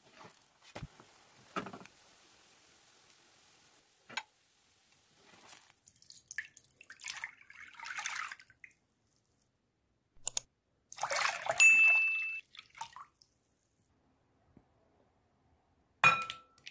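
Ingredients going into glass bowls: a few light taps, then curd cheese scraped out of its tub, then a loud splashing pour of milk into a glass bowl, with the glass ringing as it fills. About 16 s in, a sharp glass-on-glass clink rings out as two eggs are tipped from a small glass bowl into the milk.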